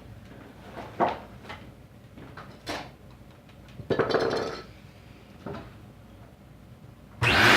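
A few scattered clicks and knocks, then near the end a Dirt Devil self-propelled Vision upright vacuum cleaner switched on, its motor starting suddenly into a loud, steady run.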